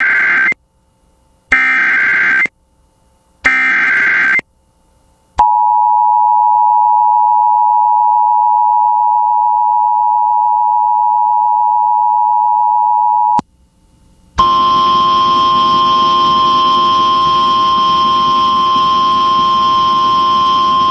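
Emergency Alert System signal: three short data bursts of the SAME header, about a second each, then the steady two-tone attention signal for about eight seconds. After a short gap comes a second, harsher steady tone for about seven seconds.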